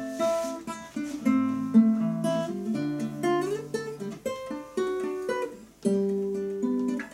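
Two nylon-string classical guitars playing an instrumental passage together: plucked notes and chords ringing out, with a brief break about six seconds in before the playing picks up again.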